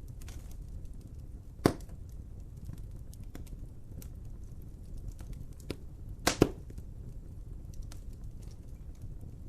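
Wood fire crackling over a low steady rumble, with scattered small ticks and a few sharp pops: one about one and a half seconds in and a quick double pop around the middle.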